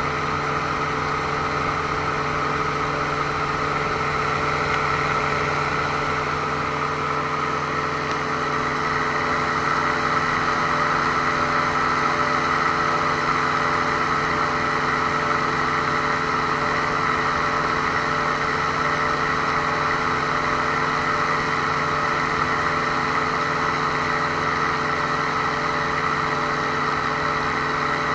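Ultralight aircraft's engine and propeller running steadily in flight, a constant drone that swells slightly about ten seconds in.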